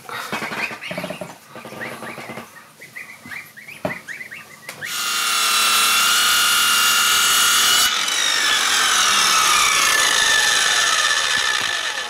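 Downy chicks peep in the first few seconds. About five seconds in, an Interskol electric circular saw starts up and runs loud and steady as it cuts a wooden board, its whine falling in pitch over the last few seconds.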